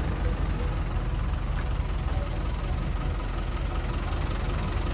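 Truck engine running steadily with a low rumble, heard from inside the cab while the truck drives slowly.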